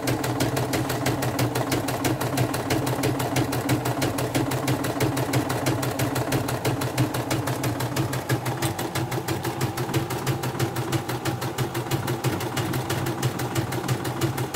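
CNY computerized embroidery machine stitching a test design, its needle going up and down in a fast, even rhythm of clicks over the steady hum of its motor.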